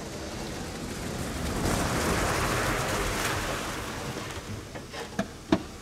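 A car driving across the grass field and coming to a stop: a rushing noise that swells over the first three seconds and then fades, followed by two short knocks near the end.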